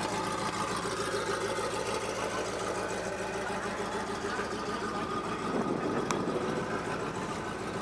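Ferrari F40's twin-turbo V8 idling steadily, with a fast even firing pulse.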